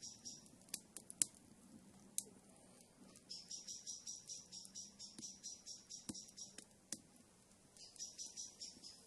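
Small wood fire crackling in a barrel stove, with a few sharp pops, the loudest about a second in. A bird chirps in quick runs of high notes for several seconds at a time, pausing briefly near the end.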